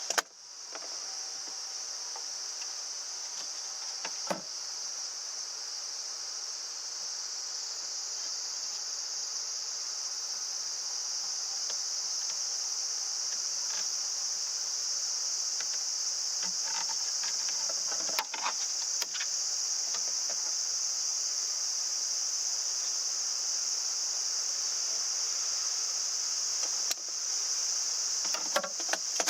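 A steady, high-pitched chorus of insects droning without a break, with a few light clicks and knocks from handling in the car now and then.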